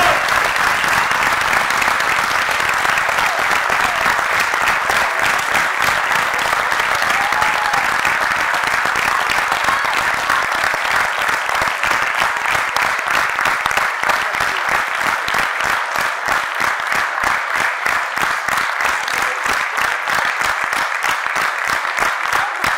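Theatre audience applauding a folk dance ensemble's curtain call; about halfway through the clapping falls into a steady, rhythmic beat in unison.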